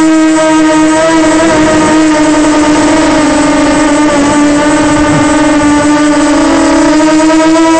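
Walkera Runner 250 quadcopter's electric motors and propellers whining loudly, picked up close by its onboard camera. The pitch holds fairly steady, dipping slightly midway and rising again near the end.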